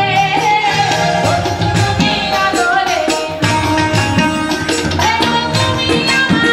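A woman singing a Sylheti dhamail folk song through a microphone and PA, with held notes that glide between pitches, accompanied by tabla and electronic keyboard in a steady rhythm.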